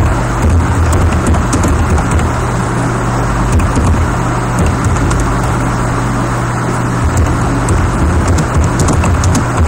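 Keyboard keys clicking irregularly as text is typed, under a loud, steady noise with a low hum.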